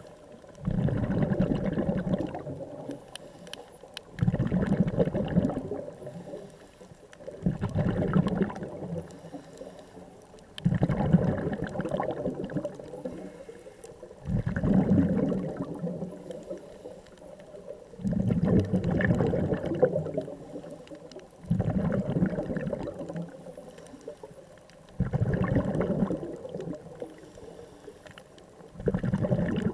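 Scuba diver's exhaled bubbles gurgling out of a regulator, in bursts lasting a second or two and coming about every three and a half seconds with the diver's breathing, heard underwater.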